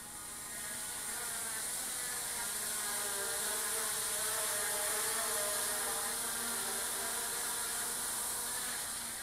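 Hubsan H501S quadcopter drone buzzing in flight, its brushless motors and propellers giving a steady multi-toned whine that grows louder as it comes near and fades again near the end.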